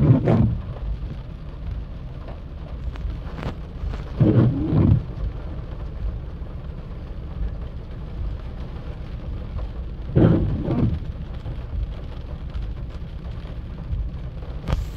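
Thunderstorm rain falling steadily in wind, with a constant low rumble. Three short, louder low rumbles come near the start, about four seconds in and about ten seconds in.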